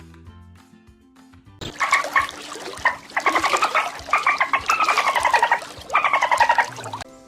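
Soft background music, then, about one and a half seconds in, an animal calling loudly in about four long, harsh, rapidly pulsed calls that fall in pitch.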